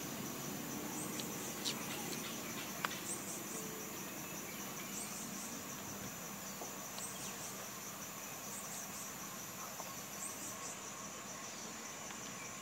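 Insects droning steadily at a high pitch, with short high chirps repeating about every second or so. Two sharp clicks come about two and three seconds in.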